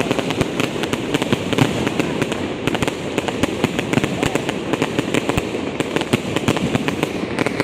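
Fireworks going off in a dense, continuous barrage: many sharp bangs and crackles every second, over a steady low rumble of distant bursts.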